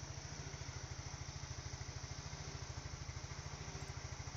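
Freshly rebuilt Yamaha Mio scooter's single-cylinder four-stroke engine idling with a steady, even pulse on its test run after reassembly.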